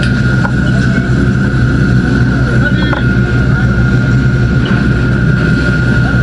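Fire engine's engine running steadily close by as it pumps water, a loud even drone with a thin steady whine above it.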